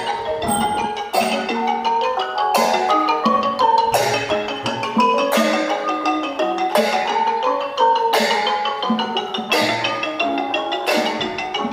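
Xylophone-led percussion ensemble music in the Thai piphat style: fast melodic runs on struck wooden bars, with a sharp beat about every one and a half seconds.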